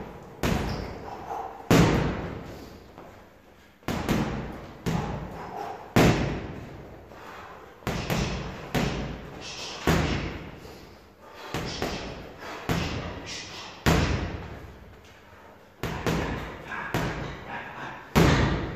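Boxing gloves striking a hanging heavy bag in quick combinations of two or three punches about every two seconds, each blow followed by a short echo.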